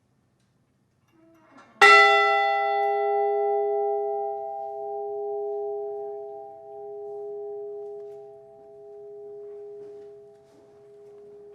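The Edmund Fitzgerald's ship's bell struck once about two seconds in, then ringing on in a long fade, its low hum swelling and ebbing. It is the toll for all mariners lost on the Great Lakes.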